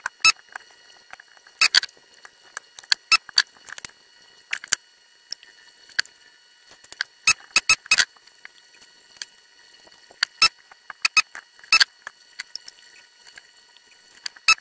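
Irregular sharp clicks and clinks of desoldering work on a circuit board: a desoldering gun at work while electrolytic capacitors are pulled out and dropped on the wooden bench. The sound is heard sped up, over a faint steady high whine.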